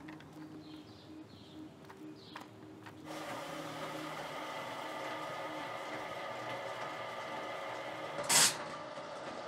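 Soda-siphon filling machine running with a steady mechanical hum, and one short, loud hiss of gas a little after eight seconds as a siphon bottle is filled at its valve.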